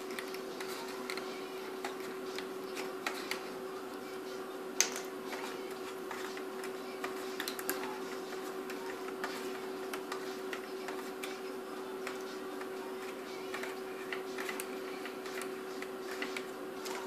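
Small clicks and plastic taps of hands working the pointer needles off a Mercedes A-Class W169 instrument cluster, with one sharper click about five seconds in, over a steady hum.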